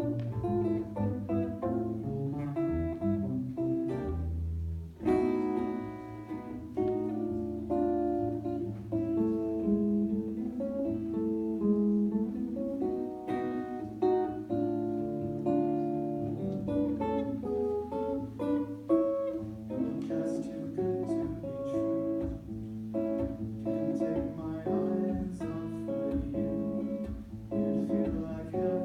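Instrumental solo jazz with no singing: chords and melody notes over a moving bass line.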